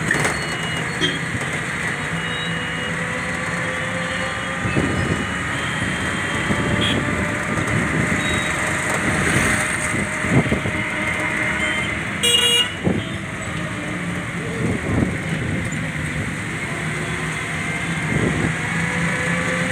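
City road traffic: motorcycle, scooter and car engines running, with several short horn toots; the loudest toot comes about twelve seconds in.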